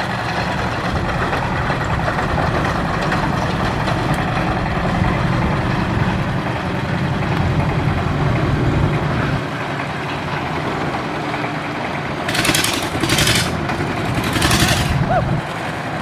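The long-tail propeller engine of a steel ferry barge runs steadily, its propeller churning the water, and eases off a little about halfway through. Three short bursts of hissing noise come near the end.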